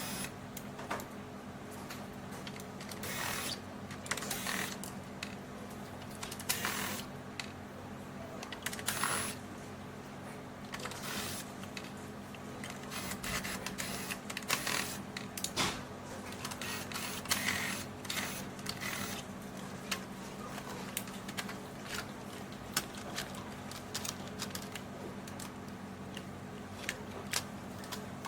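Hands working on an ILIFE T10s robot vacuum during a motherboard replacement: scattered clicks, taps and brief scrapes of parts being handled, irregular throughout, over a steady low hum.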